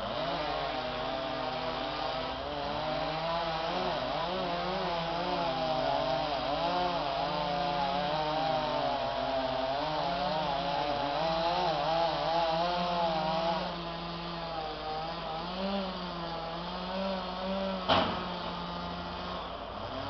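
Chainsaw engine running steadily, its pitch wavering up and down as it is worked. It drops quieter about two-thirds of the way through, and a single sharp knock sounds near the end.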